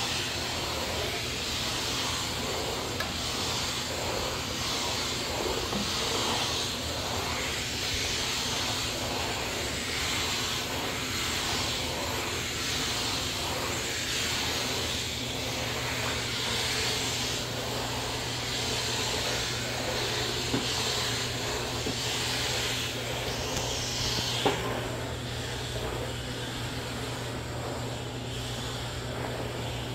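Steam cleaner hissing as its cloth-covered floor tool is pushed back and forth over tile and grout; the hiss swells and fades with each stroke, about once a second, over a steady low hum. Two short sharp clicks in the second half.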